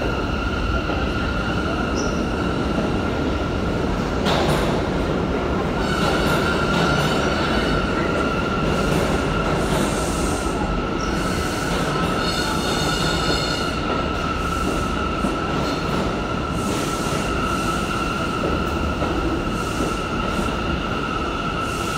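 R179 New York City subway train pulling out and running past along the platform: a steady rumble of wheels on rail with a steady high-pitched squeal throughout. There is a clunk about four seconds in, and higher squealing joins around the middle.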